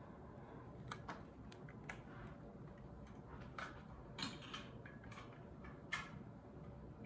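About ten faint, irregular light clicks and taps of a small plastic toy wrestling table being snapped back together, the loudest about four and six seconds in.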